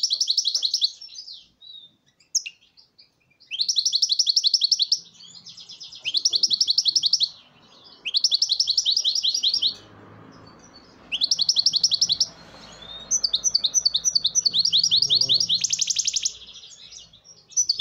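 European goldfinch singing: phrases of rapid, high trilled notes, each lasting a second or two, repeated with short pauses.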